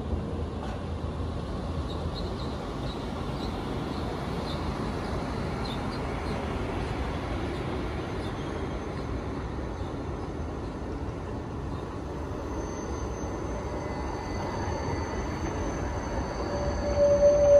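Rail vehicle running on track: a steady rumble of wheels on rails, with a few faint high wheel squeals in the first few seconds. Near the end a held musical tone comes in.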